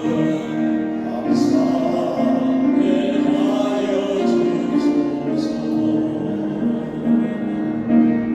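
A Christian praise song sung by voices with instrumental accompaniment, the voices holding long notes.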